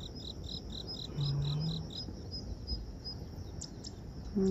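Insects chirping: a steady high trill with a faster pulsed chirp, about six a second, that stops about two seconds in. A few brief bird chirps near the end.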